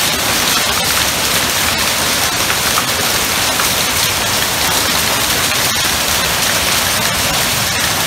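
Heavy hail falling: a loud, steady hiss of countless hailstones striking, with sharper clicks of single stones standing out.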